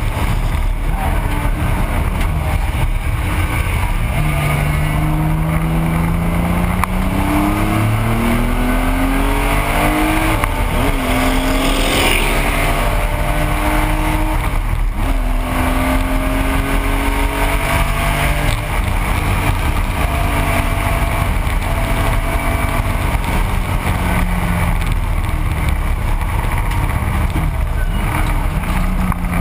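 Air-cooled flat-six engine of a 1985 Porsche 911 race car heard from inside the cabin at racing speed. Its note climbs in pitch and drops back again and again as the car accelerates and shifts gears, over steady wind and road noise.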